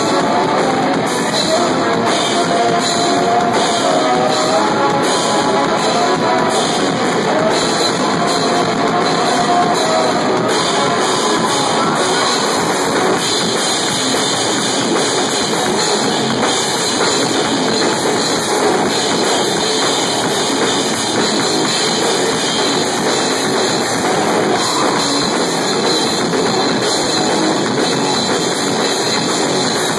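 Live heavy rock from a two-piece band: electric guitar over a drum kit, loud and dense, recorded on a phone. In roughly the first ten seconds a wavering pitched line rises and falls above the rest.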